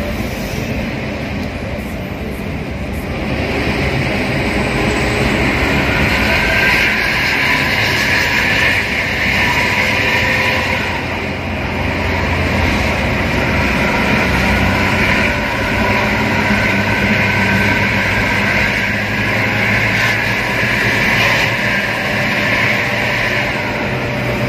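Coach bus's exhaust heard from close behind at highway speed: a loud, steady "suosss" hiss over the low hum of the engine. It swells a few seconds in and dips briefly about halfway through.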